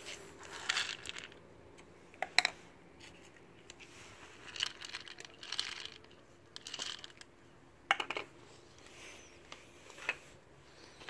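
Dry cat kibble rattling and clattering in plastic food bowls in short bursts as a bowl is handled, with a few sharp clicks of hard pieces or a bowl knocking on a concrete floor: two about two seconds in, a cluster about eight seconds in and one near the end.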